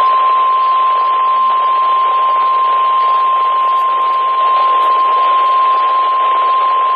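NOAA Weather Radio 1050 Hz warning alarm tone, sounded as the weekly test of the alert that switches on weather-alert receivers: one steady, unbroken high tone, heard over a hiss of radio static.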